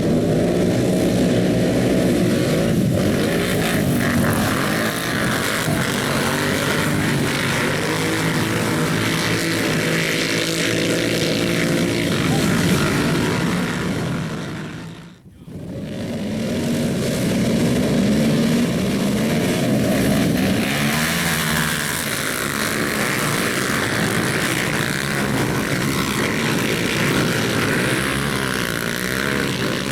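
Several racing ATV engines running hard, their pitch rising and falling as they rev through the gears. The sound dips out briefly about halfway, then comes back.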